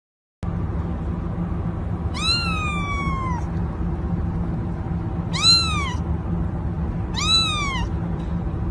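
A cat meowing three times over a steady low hum: the first meow long and falling in pitch, the next two shorter, rising then falling.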